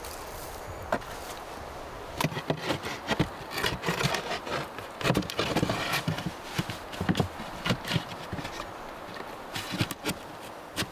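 Thick wooden planks being handled and fitted onto a bench frame: irregular hollow knocks and scrapes of wood on wood, in several short clusters.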